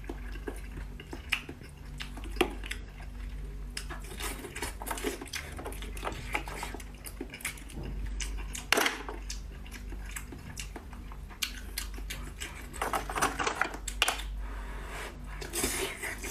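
Oyster shells clicking and scraping against one another as they are handled and eaten from, in irregular sharp clicks, over a low steady hum.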